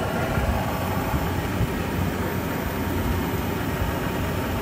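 Pentair MasterTemp 250 gas pool heater and its equipment running with a steady low hum during its start-up cycle, before the gas valve has opened.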